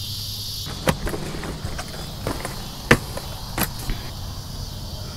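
Steady high chorus of insects such as crickets, over a faint low hum, with a few sharp clicks and knocks scattered through; the loudest knock comes about three seconds in.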